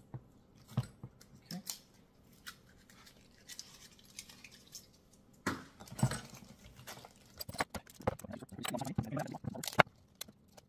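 Packing tape being pulled and peeled off the metal parts of a new bike repair stand, in short rasping strips, amid small clicks and knocks of the parts being handled, with a sharp knock near the end.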